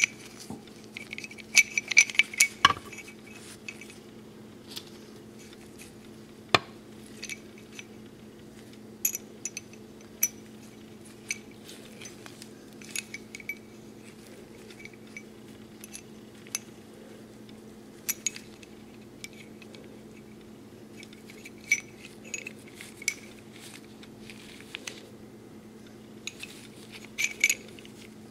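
Metal parts of a .44 cap-and-ball Colt 1851 Navy revolver being handled, giving scattered light clicks and clinks, busiest about two seconds in, over a steady low hum.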